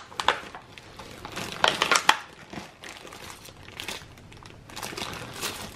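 Clear plastic zip bags crinkling and rustling as hands rummage through bagged supplies in a cardboard box, with a few louder crackles about two seconds in.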